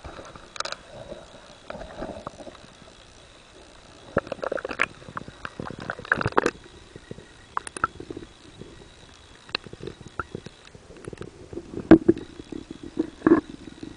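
Water sounds heard through a camera's waterproof case held underwater: muffled sloshing with irregular knocks and clicks of handling against the case, a couple of louder bumps near the end, and a faint steady high tone.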